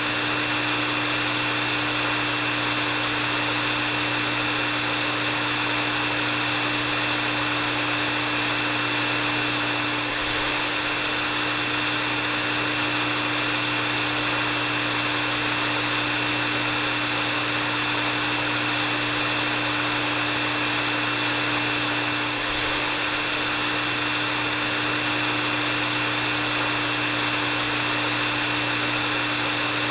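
Hair dryer running steadily: an even rush of air with a steady low hum and a thin high whine held throughout.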